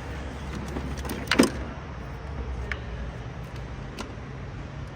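A few sharp clicks and knocks from parts being handled in a car's engine bay as fuses are checked, the loudest about a second and a half in, over a steady low hum.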